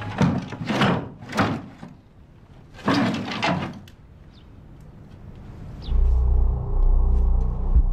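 Several short, rough scraping and sliding noises, each under a second, as things are moved about in a search. About six seconds in, a loud, low, steady drone begins.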